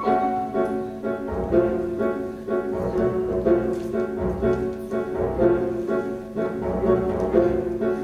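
Instrumental music accompanying a stage musical, with piano and bowed strings playing a steady rhythmic figure of about two notes a second.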